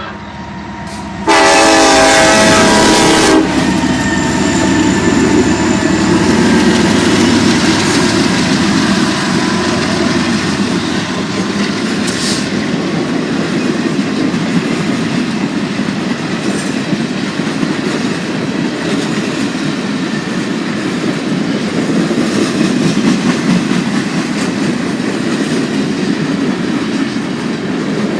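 Diesel freight locomotive horn sounding one blast of about two seconds, starting about a second in. Then the train passes close by as a loud, steady rumble of locomotives and freight cars on the rails.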